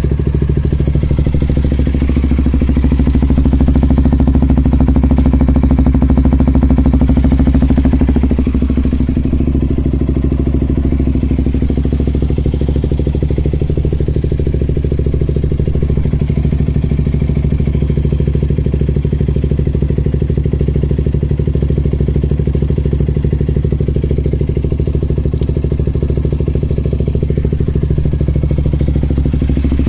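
KTM Duke 200's single-cylinder four-stroke engine idling steadily through an LCI titanium slip-on silencer with no inner silencer fitted, on the stock header pipe. The idle is a little higher for the first several seconds and settles about eight seconds in.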